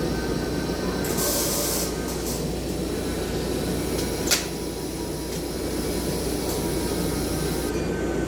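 Electric arc welding on pipe, a steady crackling sizzle. A short hiss comes about a second in, and a single sharp click a little after four seconds.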